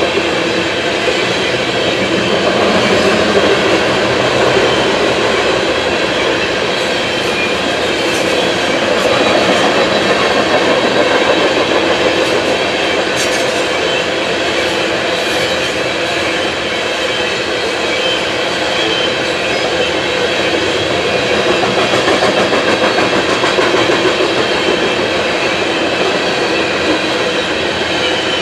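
Freight train of coal hopper cars rolling steadily past: the wheels rumble along the rails with a rhythmic clatter.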